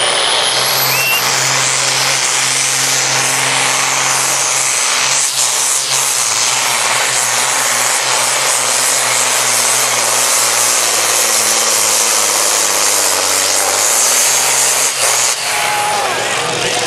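Pulling tractor engine running flat out under load as it drags a weight sled down the track. The engine note drops slightly about three-quarters of the way through.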